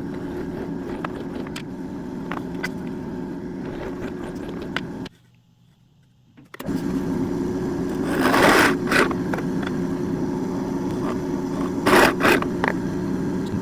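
Electric drill motor running steadily while boring into wood, stopping for about a second and a half midway and then running again, with a few short scraping rasps as the bit cuts.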